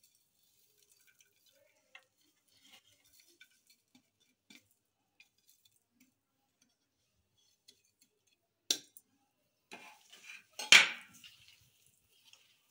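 A ceramic platter and a steel mixing bowl handled together: faint light taps and scrapes as spices are pushed off the platter into the bowl, then a sharp clink about nine seconds in and a louder clatter of dishes about a second later.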